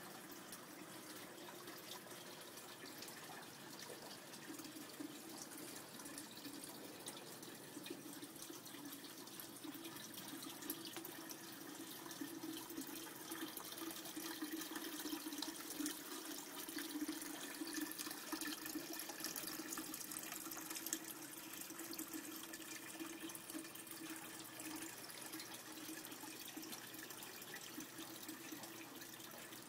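Water trickling and splashing in a tiered ceramic-pot garden fountain, spilling from one pot into the next. It grows louder toward the middle and eases off again near the end.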